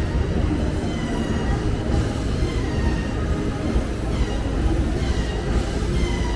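An elevated metro train running past, with a steady rumble and repeated high, gliding squeals or whines from its wheels and motors.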